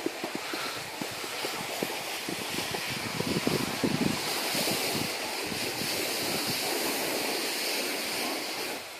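Steady hiss and scrape of a snowboard sliding on packed snow, mixed with wind rushing on the microphone and a few small knocks. It grows a little stronger midway and eases off near the end.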